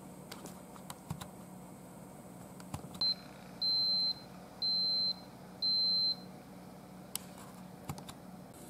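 Aroma 20-cup digital multicooker beeping at the end of its steam cycle, its timer run down to zero: one short high-pitched beep, then three longer ones about a second apart. A few faint clicks before and after.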